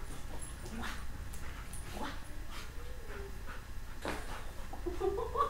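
Yellow Labrador retriever during rough play: scattered scuffling noises and a short, soft whine about halfway through.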